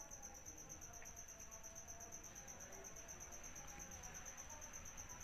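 Faint cricket chirping: a steady, high, evenly pulsing trill over otherwise near-silent background.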